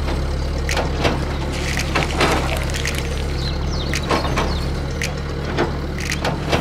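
Steady low hum of a small DC-motor-driven toy excavator working its arm and bucket, with short rustling and clicking as the bucket scoops into loose grain, busiest about two seconds in.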